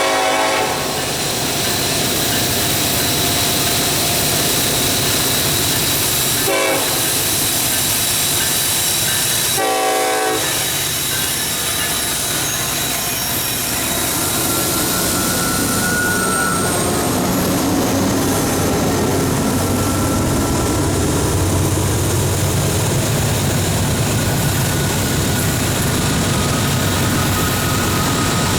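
Norfolk Southern freight locomotive's air horn sounding in short blasts: one ending about a second in, another about a third of the way through, a third soon after. Then the diesel locomotives pull in close and pass with a loud, steady low rumble that lasts to the end.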